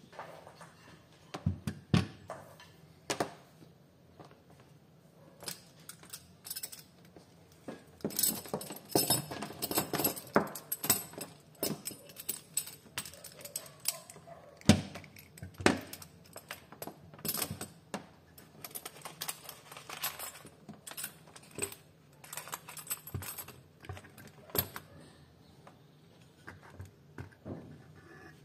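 Irregular clinks and knocks of metal parts and hand tools being handled on a workbench. There is a busier clatter about a third of the way in, and one sharp knock, the loudest, about halfway through.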